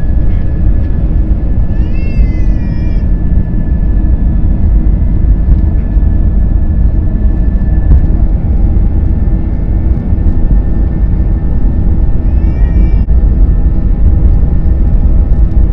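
Airliner cabin noise while taxiing: a loud, steady low rumble from the jet engines with a thin steady whine that fades about halfway through. A short high wavering cry sounds twice, about two seconds in and again about twelve seconds in.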